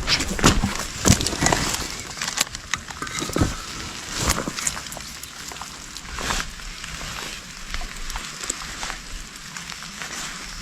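Dry leaves, grass and twigs crackling and rustling under someone moving through undergrowth, with irregular sharp clicks and knocks. They are densest and loudest in the first five seconds, then thin out to fainter scattered crackles.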